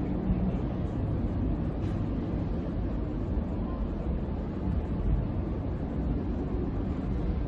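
Steady low rumble of the cruise ship Sky Princess under way as it heads out to sea, with no clear pattern.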